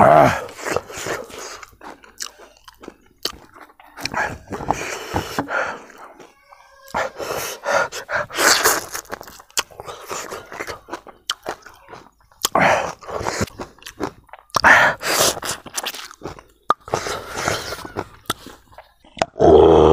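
A person chewing and crunching food close to the microphone, in irregular bouts with short pauses.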